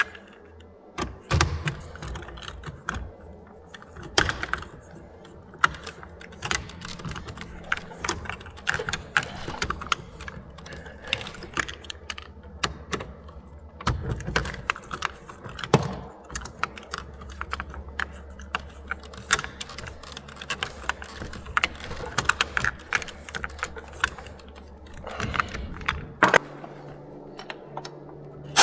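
Irregular small clicks, taps and light metallic rattling of hand tools and hardware being worked in an electrical panel, with a low steady hum underneath for part of it.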